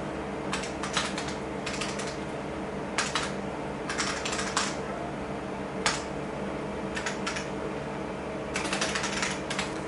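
Typing in bursts on an IBM PC keyboard: rapid runs of sharp key clicks with short pauses between them, over a steady hum from the running computers.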